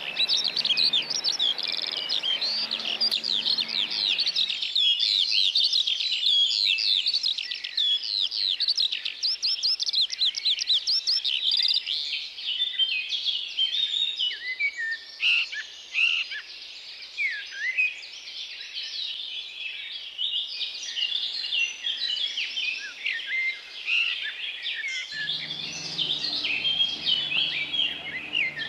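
Several songbirds singing at once, a dense chorus of quick high chirps and trills that runs on without a break. A low steady background noise sits under the birdsong for the first few seconds and comes back near the end.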